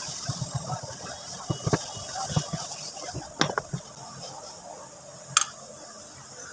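Metal engine parts of a two-stroke brush-cutter engine being handled and fitted together as the crankshaft goes into the block: a run of light, irregular clicks and knocks, then quieter handling, with one sharp click a little past five seconds in.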